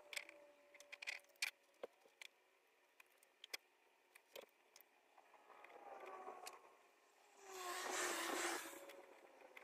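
Small clicks and rustles of insulated wires and connectors being handled. Near the end comes a rasping rip of about a second: electrical tape pulled off the roll to join the wires.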